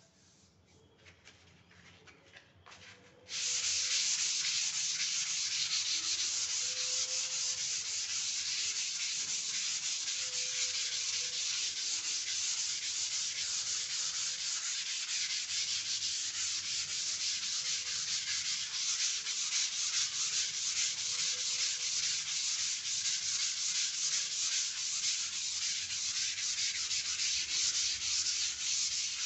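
Dried wall putty being sanded by hand with 180-grit sandpaper on a block: a steady scratchy hiss of quick back-and-forth strokes that starts abruptly about three seconds in, after a few faint knocks.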